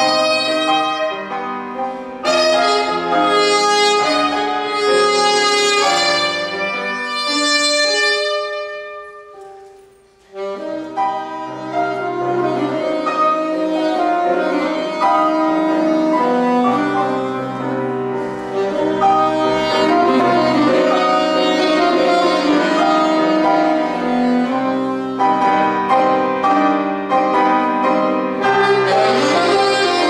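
Saxophone and grand piano playing a slow tango together, the saxophone carrying the melody over piano chords. About eight seconds in, the music dies away to a brief hush, then both instruments come back in about ten seconds in.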